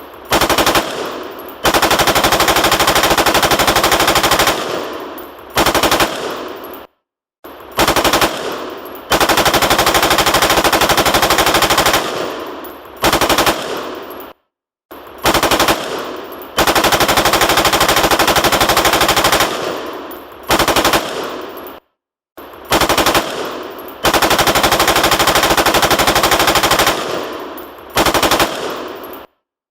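Automatic gunfire sound effect: a short burst of rapid shots, a long burst of about three seconds, then another short burst, each fading out in a ringing tail. The same sequence repeats about every seven and a half seconds, with a brief silence between repeats.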